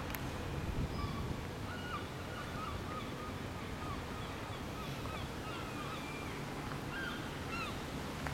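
Small birds chirping in a string of short, high calls over a steady low outdoor rumble.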